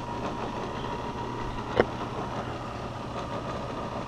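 Electric bench grinder fitted with an abrasive wheel, its motor running steadily with the wheel spinning free and no blade against it. A single sharp click comes a little under two seconds in.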